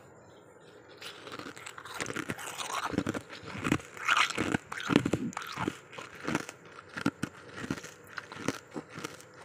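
A mouthful of freezer frost being bitten and chewed: irregular crisp crunches that start about a second in and grow loudest near the middle.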